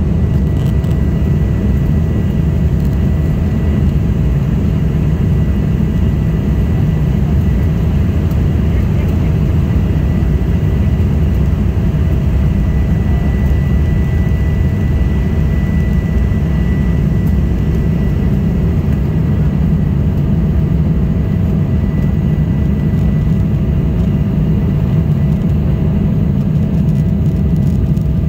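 Steady cabin noise inside an Embraer E175 regional jet: its GE CF34 turbofan engines running with a deep rumble and a steady whine held at one pitch.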